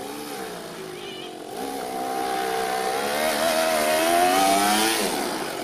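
Toyan FS-L200 twin-cylinder four-stroke nitro engine in an RC truck, running under throttle as the truck drives. The note rises in pitch and grows louder, then eases off about five seconds in. The engine is on its first run, still being run in.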